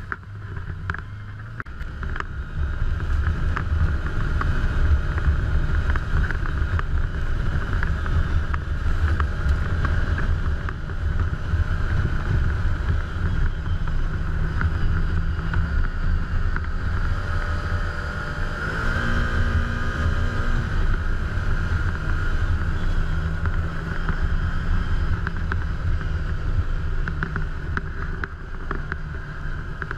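Can-Am Commander 1000 side-by-side's V-twin engine and drivetrain running under way, heard from inside the open cab, picking up about two seconds in. The engine note changes briefly around two-thirds of the way through.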